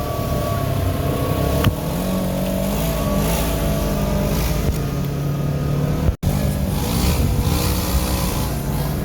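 Off-road vehicle engines running and revving, their pitch shifting up and down. The sound drops out completely for an instant about six seconds in.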